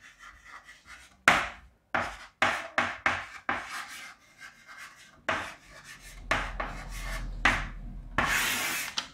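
Handwriting: a run of short, irregular scraping strokes of a writing tool on a surface, ending in one longer, louder scrape near the end.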